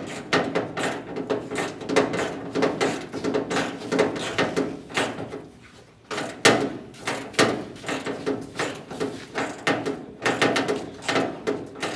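Hand tools working on a car's body bolts: a run of irregular clicks, knocks and scrapes of metal on metal, with a short lull about halfway through.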